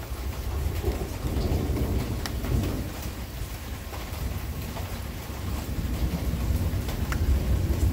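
Thunder rumbling low over steady rain, swelling about a second in and again near the end, with a few sharp raindrop ticks.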